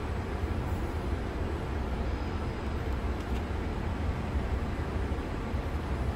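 Steady low hum and rumble inside an SMRT T251 metro car standing at a station platform with its doors open, the stationary train's on-board equipment running while it dwells at the stop.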